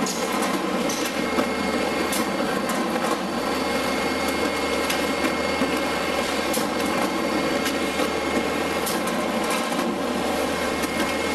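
Automatic veneer composer (core builder) running: a steady machine hum with a faint high whine and a few light, irregular clicks as the belt conveyors feed veneer.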